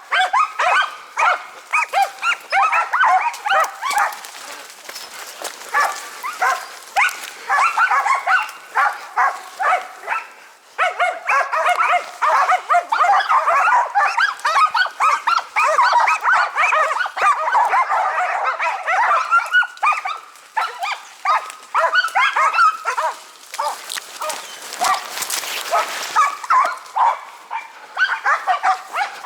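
Several Karelian-Finnish laikas barking fast and without let-up, their barks overlapping: hunting dogs baying at a marten they have treed.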